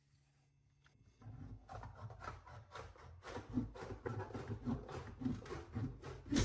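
Hand snips cutting across sheet metal stroke by stroke. A regular run of short sharp cuts, about three a second, starts about a second in.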